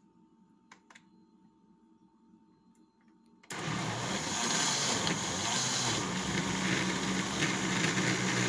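Countertop blender switched on about three and a half seconds in, its motor running steadily at full speed as it purées chopped tomatoes, onions and peppers.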